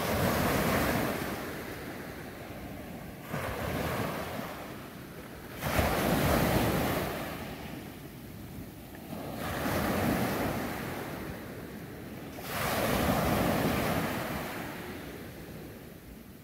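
Small sea waves breaking in the shallows and washing up the sand, the surf swelling and fading every two to three seconds.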